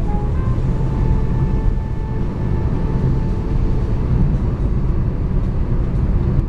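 Steady low rumble of tyre, road and engine noise inside a car's cabin while driving at freeway speed.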